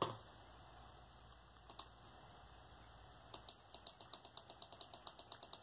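Computer keyboard keys tapped: two taps, then a quick, even run of about twenty taps, about eight a second, from about three seconds in.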